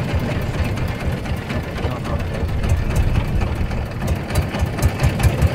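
Yamaha 40 hp outboard motor running steadily, pushing an inflatable boat along the river, heard as a continuous low, rapidly pulsing rumble with a hiss over it.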